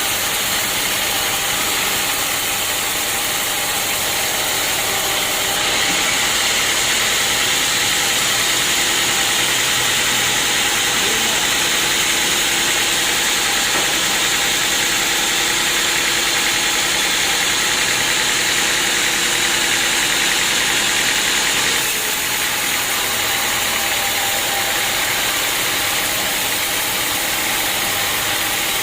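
Sawmill saw running steadily, louder and brighter from about six seconds in until about twenty-two seconds as the blade cuts through an acacia log, then dropping back to its running level.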